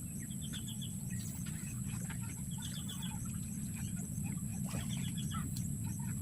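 Birds calling outdoors: three short runs of quick, high chirps, about two seconds apart, over a steady low rumble.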